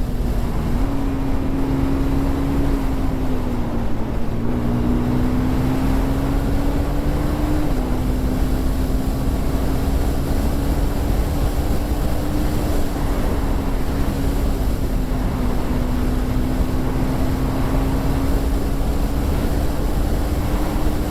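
KTM 390 Duke's single-cylinder engine through its stock exhaust, running under way at a fairly steady pitch that creeps up and drops back slightly a few times, with wind rushing over the microphone.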